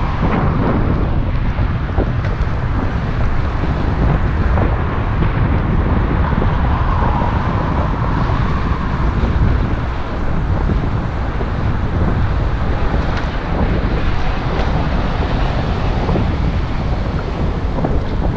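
Steady wind buffeting the microphone, a dense low rumble.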